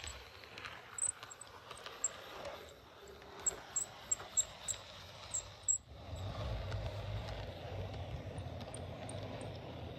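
HO-scale model train rolling along the track: a run of sharp, irregular clicks from the wheels over the rails, with a low rumble that gets louder about six seconds in.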